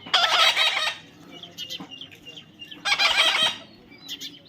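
Pet parrot squawking: two loud, harsh calls, the first right at the start and the second about three seconds in.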